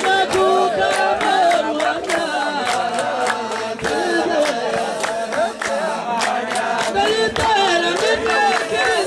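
A group of voices singing and chanting together without instruments, with frequent sharp claps.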